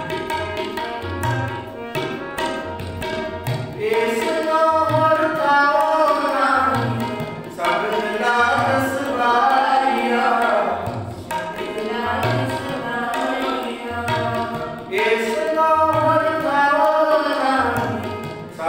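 Sikh kirtan: two harmoniums sound held chords while a tabla pair keeps a steady rhythm. From about four seconds in, voices sing phrases of the shabad, with a few seconds of harmonium and tabla alone in between.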